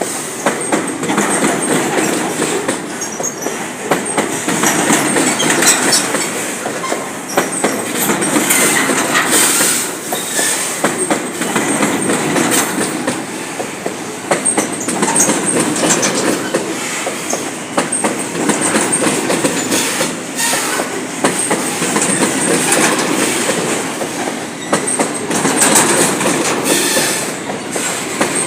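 Train cars rolling steadily past on the track, wheels clacking over rail joints with a high wheel squeal at times.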